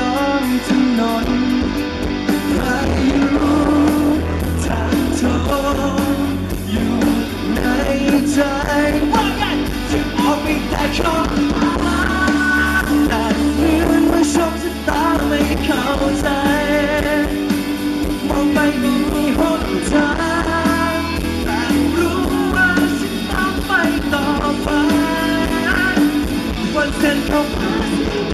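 A male singer singing live with a rock band, drum kit included, the music continuous and loud.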